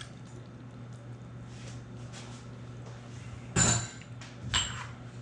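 Kitchen dishes clinking: a sharp ringing clink about three and a half seconds in, as a container is set down on the counter, and a lighter clink about a second later, over a steady low hum.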